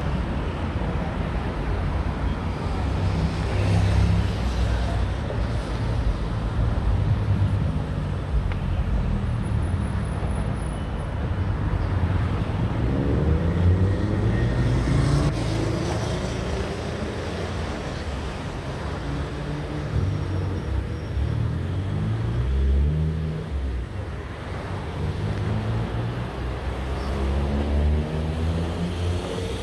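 Busy road traffic: car engines running and passing. Engine notes rise in pitch several times as vehicles pull away.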